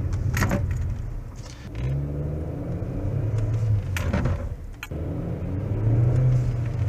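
Fiat Toro pickup driving, its engine rising and falling as it pulls away and slows, with several sharp short knocks, the clearest about half a second in and about four seconds in. The knock is the clunk, like a loose part, that comes each time it brakes or accelerates from a standstill; the cause is not yet found.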